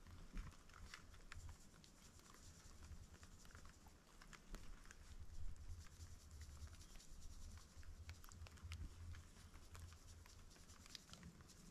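Near silence with faint, irregular light taps and clicks over a low rumble.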